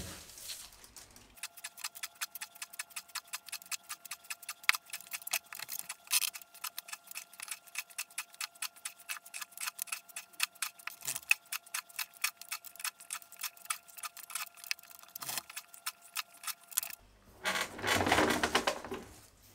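Clock-like ticking sound effect with a faint steady tone beneath it, fast and even. Near the end it stops abruptly and gives way to a short stretch of noise.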